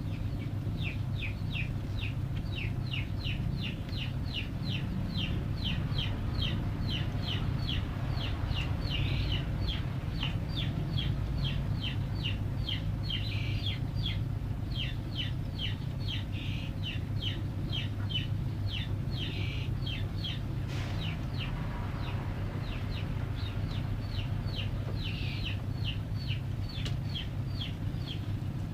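Steady low hum with a regular run of short high chirps, two or three a second, in the manner of a chick peeping.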